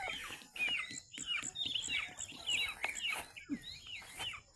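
Birds chirping busily, a rapid run of short up-and-down calls that overlap one another.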